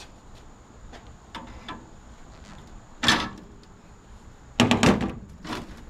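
Long-handled loppers cutting through the copper tubing of an air-conditioner condenser coil. There is a sharp snap about three seconds in, then a quick run of snaps and metal clanks near the end.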